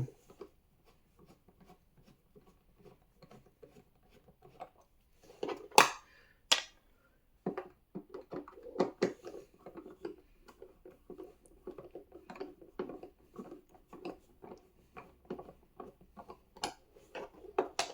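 Screws being backed out of the booster seat's plastic armrest by hand with a screwdriver: a run of small clicks and scrapes, two sharper knocks about six seconds in, then quick, busy ticking as the screws turn and the armrest comes free.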